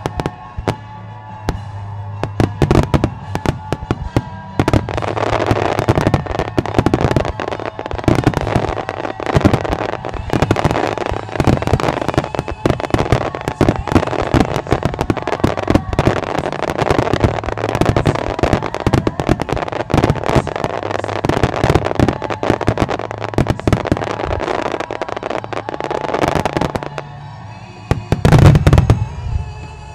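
Starmine fireworks barrage: a rapid, dense run of shell bursts, bangs and crackles, with music playing underneath. Lighter for the first few seconds, then a continuous volley from about five seconds in. After a brief lull near the end, one big heavy boom is the loudest moment.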